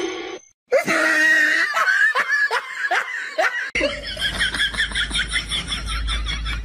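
Human laughter in two stretches: first a laugh in repeated swooping bursts for about three seconds, then, after an abrupt cut, a faster and more even run of laughing over a low hum.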